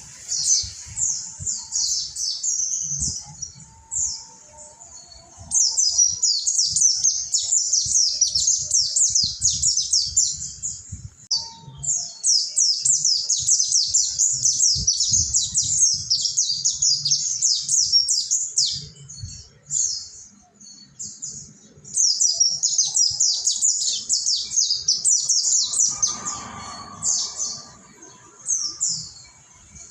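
Mountain white-eyes (pleci Monty) singing in long runs of rapid, high twittering chirps, breaking off briefly about eleven seconds in and again for a couple of seconds around twenty seconds.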